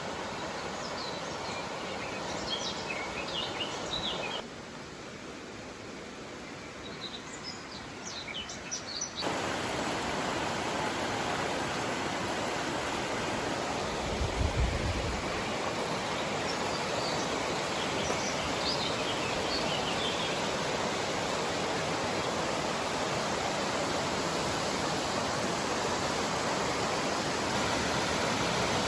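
Steady rush of falling water from a waterfall or mountain stream, with small birds chirping over it at intervals. The rush drops about four seconds in and comes back louder about nine seconds in, and there is a brief low rumble around the middle.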